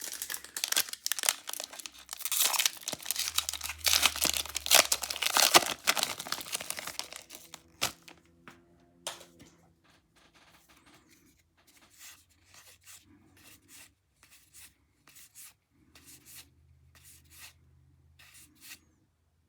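A foil Pokémon card booster pack being torn open and crinkled for about seven seconds, followed by quieter scattered clicks and rustles as the cards are handled.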